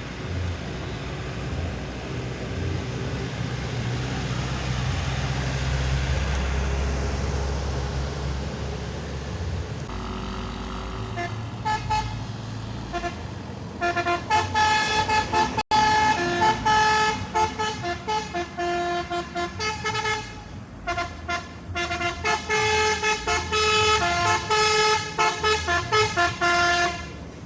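A heavy vehicle's engine rumbling past, then, from about twelve seconds in, a basuri musical horn playing a tune of quick stepped notes with short breaks between phrases, stopping just before the end.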